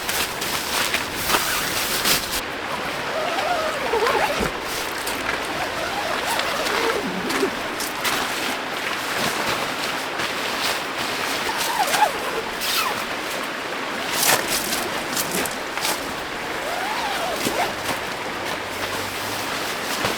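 Steady rush of a mountain valley stream, with scattered light taps and a few faint sliding tones that come and go.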